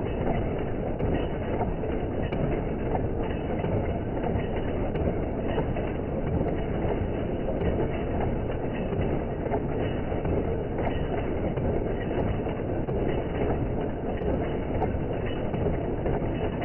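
Nail-making machinery clattering steadily and densely, with no break.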